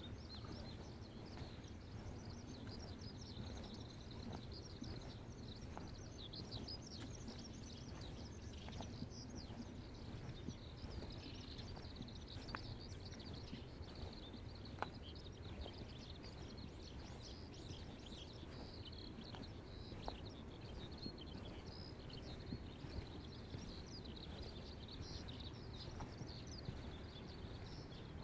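A continuous chorus of many small, high chirping calls from animals in the fields, over the low rush of water flowing in the concrete irrigation canal, with scattered faint footstep clicks.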